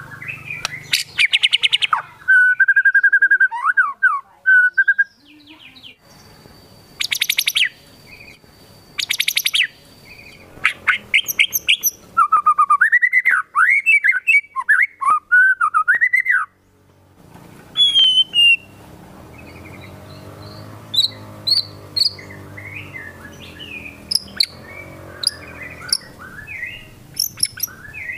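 White-rumped shama singing a loud, varied song: rapid trills, a held whistle and swooping phrases, switching to sparser, quieter chirps after a short pause past the halfway point. Its song is built from mimicked calls of other birds.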